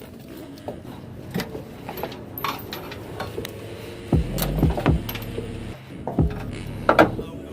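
Clinking and rattling of a tailgate cargo net's metal strap buckles and hooks being handled and fastened, with scattered knocks. The loudest knocks come about four seconds in and near the end.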